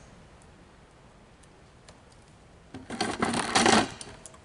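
An insulated wire rustling and scraping against a plastic electrical enclosure as it is pulled up through it. A couple of clicks come a little under three seconds in, then about a second of dense scraping.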